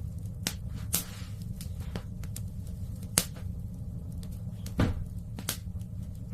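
Wood fire crackling in a fireplace: sharp, irregular pops over a steady low rumble, the loudest pop about three seconds in.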